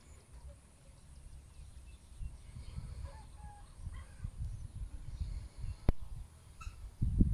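Faint, scattered calls of birds and chickens over a low, gusty rumble of wind on the microphone, with one sharp click about six seconds in.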